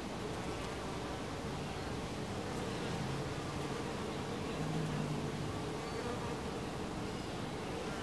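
Honey bees buzzing at a hive entrance: a steady hum of many wingbeats, with a louder, lower buzz swelling about halfway through as a bee flies close.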